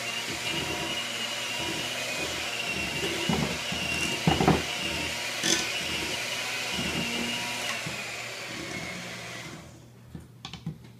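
Electric hand mixer running steadily, its beaters churning thick chocolate cake batter in a mixing bowl, with a couple of knocks about four and five seconds in. Its whine drops slightly before the motor cuts off near the end.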